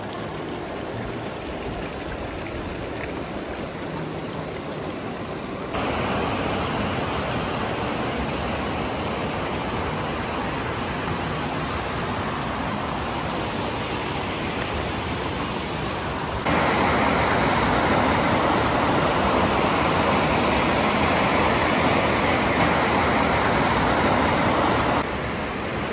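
Steady rush of creek water over rocks, jumping abruptly louder about six seconds in and again about sixteen seconds in, and dipping briefly near the end.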